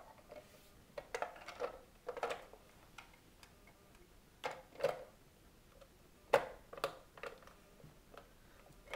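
Irregular plastic clicks and knocks as the shell halves of a Halo paintball hopper are pushed together and worked into place over the lid pin and back plate, with a sharper knock near the end.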